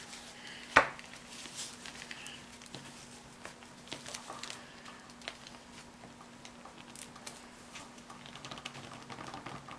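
Small plastic clicks and rustles of an action figure's leg and boot being flexed by hand to test a loose ankle joint, with one sharp click about a second in.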